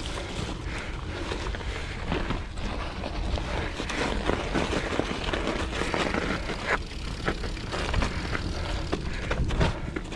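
Mountain bike being ridden over trail: a steady low rumble of the tyres rolling, with frequent rattles and clicks from the bike.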